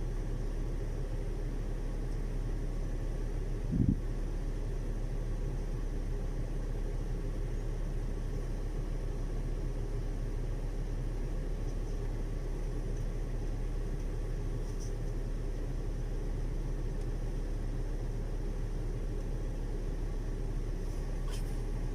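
Steady low hum with a single dull thump about four seconds in.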